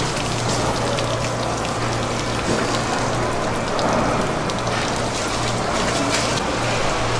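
Steady hiss of rain-like background noise over a constant low hum, with scattered faint clicks and taps.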